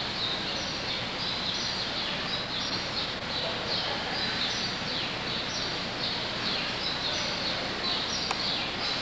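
Small birds calling steadily in the background: a run of short, high, falling chirps over a constant hiss, with a single click near the end.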